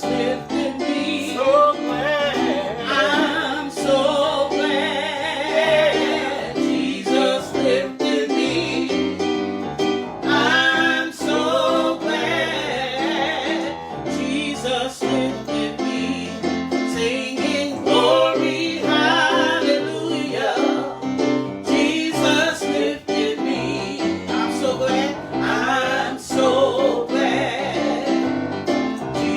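A congregational gospel song: a voice singing with vibrato over piano accompaniment.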